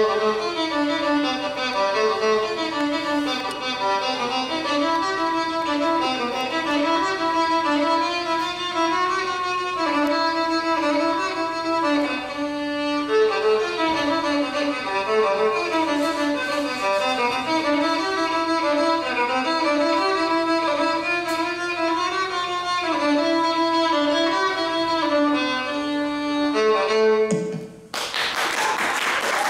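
A fiddle bowed through a lively tune, note by note. It stops about a second and a half before the end, and applause breaks out.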